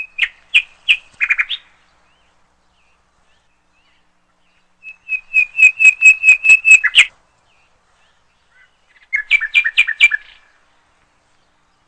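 A bird calling in three bouts of rapid, sharp repeated chirps, each bout lasting one to two seconds, with gaps of a few seconds between.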